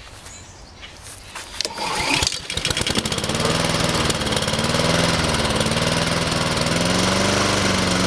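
Honda HRT2162TDA mower's GCV160 engine being pull-started: a pull of the starter cord, then about two and a half seconds in the engine catches and runs. Its speed wavers up and down, a surge the owner puts down to the mower sitting unused all season.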